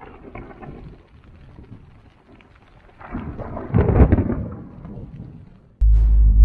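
Rain falling on a tent and grass with a roll of thunder that swells about three seconds in, peaks and dies away. Near the end a loud, deep rumble starts suddenly.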